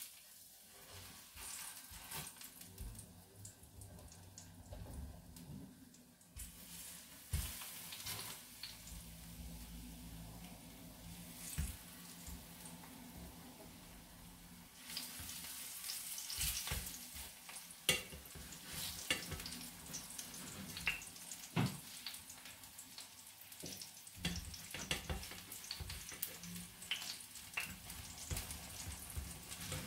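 Banana chunks sizzling in hot oil in a frying pan, with short clicks and knocks as tongs add and turn the pieces against the pan. The sizzle gets louder about six seconds in and again about fifteen seconds in.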